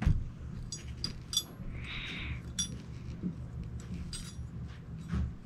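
Small stainless-steel parts of a Ruger New Vaquero revolver's grip frame and trigger guard clicking and clinking against each other as they are handled, a few separate sharp clicks with brief ringing.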